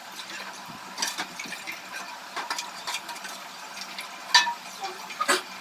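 A steel ladle stirring and scooping kadhi in a stainless steel pot, with irregular light clinks and scrapes against the pot and two sharper clinks near the end. The buttermilk is being stirred constantly so that it does not split before it comes to a steam.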